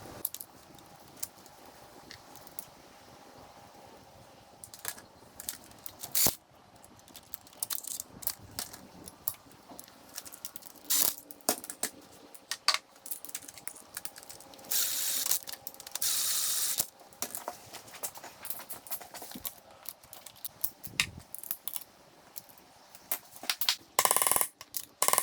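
Metal hand tools at work on a motorcycle engine: scattered sharp clinks and clicks of steel parts and a socket ratchet as a lock plate is bolted back down onto the selector fork guide shaft. Two short hisses come about halfway through.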